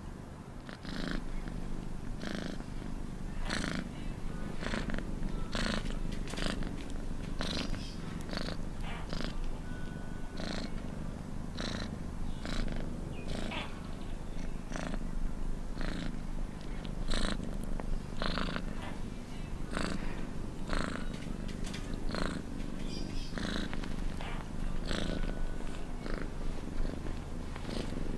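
Domestic cat purring steadily while dozing: a low continuous rumble with a rasping pulse on each breath, about once a second.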